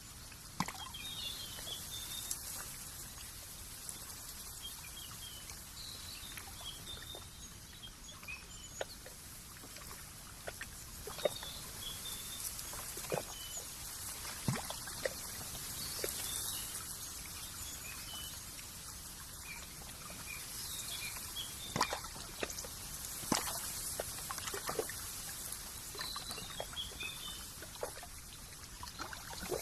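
Nature ambience: a steady soft hiss with scattered light clicks and trickling drips of water, and small birds giving short, high twittering calls in little clusters every few seconds.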